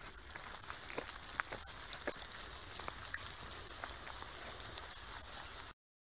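Irregular crunching and crackling of footsteps on a gravel path over a steady hiss, cutting off suddenly near the end.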